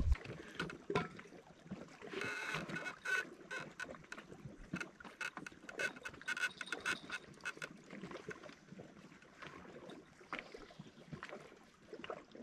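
Quiet, scattered clicks and crunches, thickest about two seconds in and again in the middle, of a person moving about and handling fishing gear on a rocky bank.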